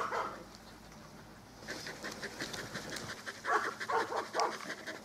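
Large dogs panting in a fast, even rhythm of short breaths. The panting starts about a second and a half in and grows louder near the end, after a brief sound at the very start.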